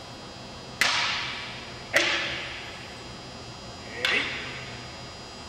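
Wooden practice swords (bokken) clacking together three times, the second strike a little over a second after the first and the third about two seconds later and slightly softer. Each sharp clack rings out with a long echo in a large gymnasium.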